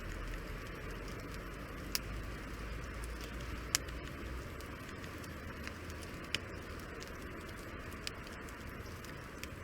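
Wood campfire burning in a three-sided fire-reflector grill: a steady low hiss with a handful of sharp, crackling pops, the loudest a little under four seconds in.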